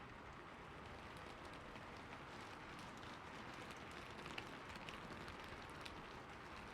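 Steady rain falling, an even hiss with scattered individual drops ticking on a surface, a few louder drops about four to six seconds in.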